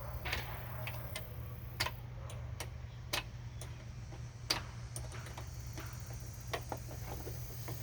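Scattered sharp metal clicks and clinks of hand tools, with a wrench or socket working the battery's negative terminal, at uneven intervals over a steady low hum.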